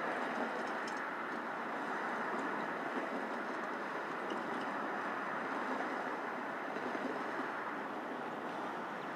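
A steady, distant wash of vehicle noise at an even level, with a few faint bird chirps.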